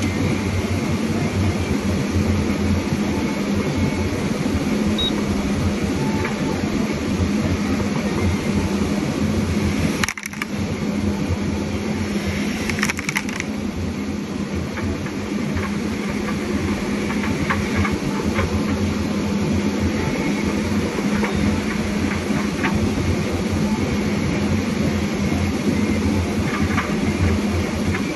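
Forestry harvester's diesel engine running steadily under load. The sound breaks off briefly about ten seconds in, then goes on, with a few light knocks after the break.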